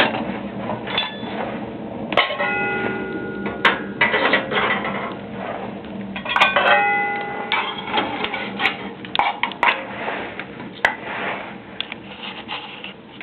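Wood fire crackling and popping inside a homemade steel wood-burning stove, with two ringing metal clanks, one about two seconds in and another about six and a half seconds in.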